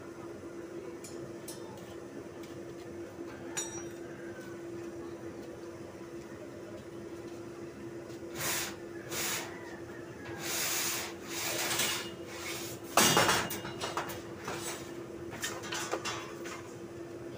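Steel rods and welded steel-rod crate frames being handled, with scattered metallic clanks and scrapes in the second half and one loud clatter about three-quarters of the way through, over a steady low hum.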